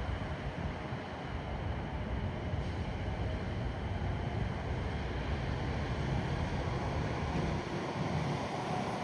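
A train passing, heard as a steady noise with faint tones above it.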